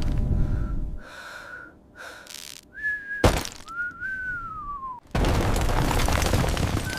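Tornado storm sound effects: a loud wind rumble cuts out about a second in, leaving thin whistling tones. There is a sharp crack a little past three seconds, then a whistle that falls in pitch, before the rumbling wind comes back loudly at about five seconds.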